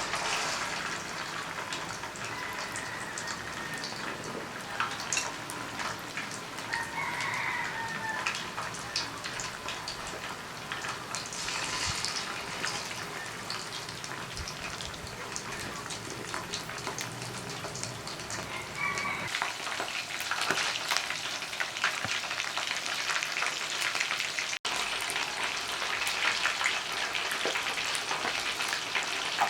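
Chicken wings frying in a pan: a steady sizzle thick with small crackles and pops, broken off for an instant about 25 seconds in.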